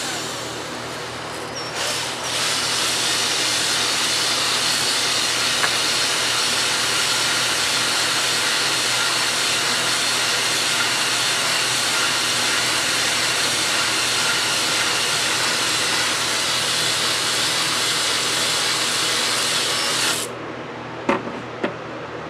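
A drill spinning a flex ball hone inside an engine cylinder bore, a steady scrubbing hiss after a short first burst, running for about eighteen seconds and stopping suddenly near the end; this is the cylinder wall being honed to a cross-hatch. A few sharp clicks follow as the tool is handled.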